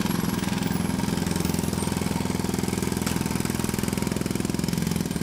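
Small electric screwdriver running steadily with a fast rattle, backing a screw out of a cable modem's plastic case.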